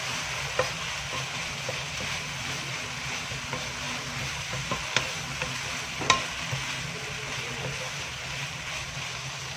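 Okra and grated coconut stir-fry sizzling in a nonstick wok while a wooden spatula stirs and scrapes through it. A few sharp knocks of the spatula against the pan, the loudest about six seconds in.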